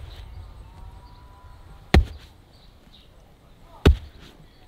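Sledgehammer striking a roll of toilet paper on grass: two heavy blows about two seconds apart, the second near the end.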